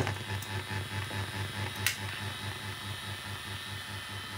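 Low electrical hum from the circuit-bent VHS recorder's audio output, pulsing at about five times a second, after its harsh noise cuts off at the start. A single sharp click about two seconds in.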